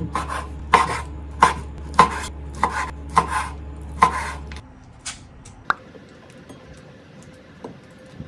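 Ceramic kitchen knife chopping bacon on a bamboo cutting board, a sharp knock roughly every half second to a second. Just past halfway the chopping stops, leaving only a few faint clicks as mushrooms are handled in a bowl.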